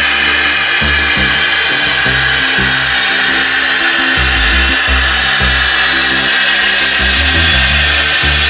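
H0-scale model diesel locomotive running along the track, its motor whining steadily with rolling track noise, over background music.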